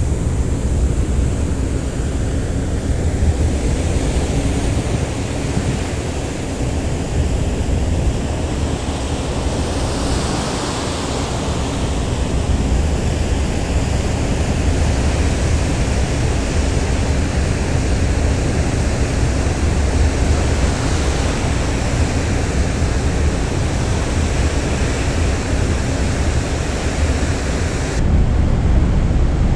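A ferry under way at sea: a steady low engine rumble mixed with the rush of wind and water washing past the hull. It gets a little louder near the end.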